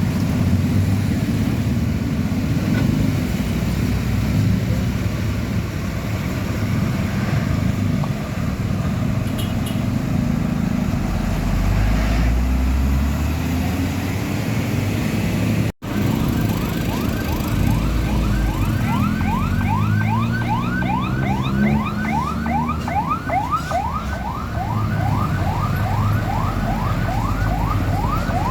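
Heavy truck diesel engines running on the road. After a cut about halfway through, a fast siren-like yelp of rising sweeps, about three a second, sounds over an engine that revs up.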